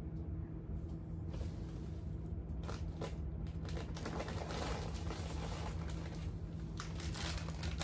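Crinkling and rustling of plastic snack bags being handled on a closet shelf, with a few light clicks and knocks among them.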